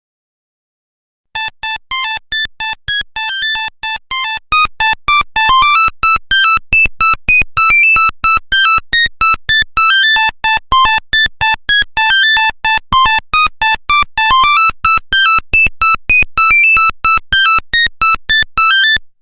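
Nokia 1100 monophonic ringtone: a quick tune of short beeping notes, about four a second, starting about a second in.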